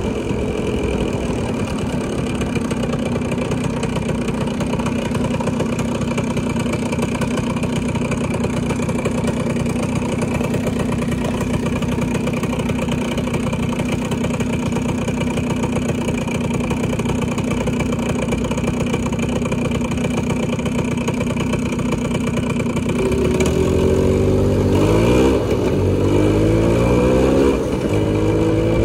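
Motorcycle engine running while riding in traffic: a steady engine note under a rough rushing noise, then in the last five seconds the pitch rises and falls several times as the engine is revved up and eased off.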